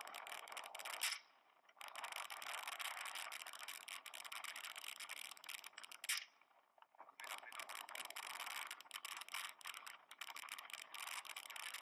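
Harsh, crackling noise from a low-quality mobile-phone recording, full of clicks, dropping out briefly twice.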